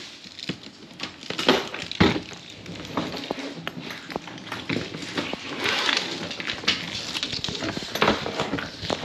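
New hard-shell suitcases being handled and moved about: scattered knocks and clicks of the plastic shells and fittings, over rustling, with a louder knock about two seconds in.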